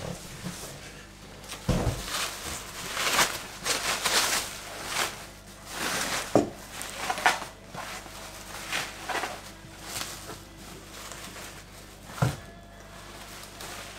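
Packaging rustling and irregular knocks and clunks as an exhaust end can is handled and unpacked, with a sharp knock about two seconds in and another near the end.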